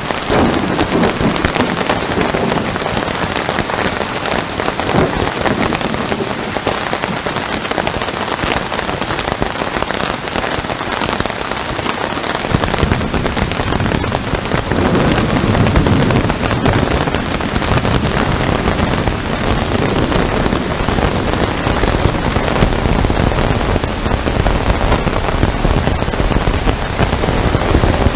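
Heavy rain falling steadily on a surface, a dense even patter. About halfway through, a low rumble joins beneath the rain and continues.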